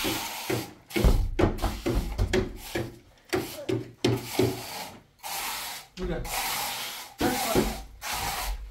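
Scraping and rubbing from stone-floor work with mortar, in short choppy stretches, with voices in between.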